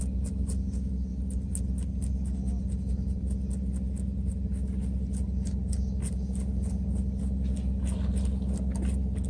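Knife scraping scales off a gizzard shad on a plastic cutting board: a run of quick, irregular scraping clicks, several a second, over a steady low rumble.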